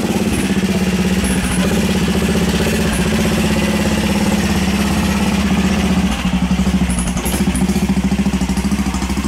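Racing lawnmower's engine idling close by with a steady, pulsing beat.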